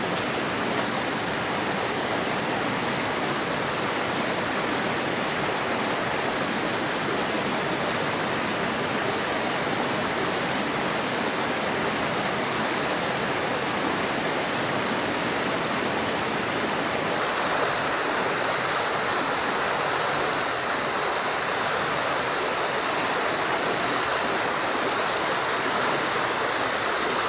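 A small mountain stream running over rocks: a steady rush of water.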